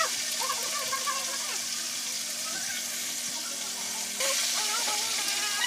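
Fish sizzling steadily as it fries in hot oil in a wok over a portable butane gas burner. Faint wavering whines come and go over the hiss.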